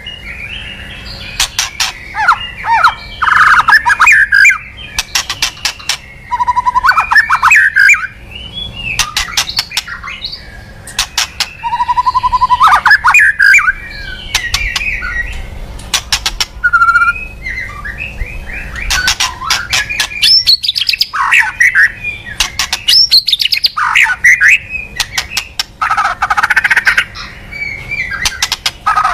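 White-rumped shama singing a loud, varied song of whistled phrases that glide up and down, broken up by quick runs of sharp ticking notes. This is a lure call used to draw shamas in.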